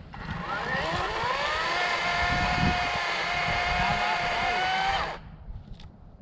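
EGO 18-inch cordless chainsaw's electric motor whining as it spins up, rising in pitch for about a second and a half, then running at a steady pitch before stopping abruptly about five seconds in.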